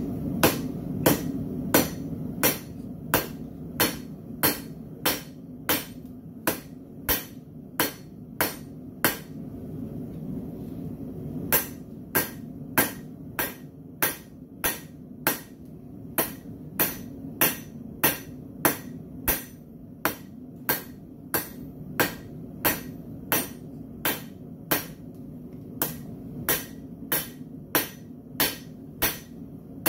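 Hand hammer striking red-hot low-carbon steel, a horseshoe held in tongs on the anvil, drawing it out to a taper. The blows are sharp and steady at about two a second, with a pause of about two seconds a third of the way in, over a steady low hum.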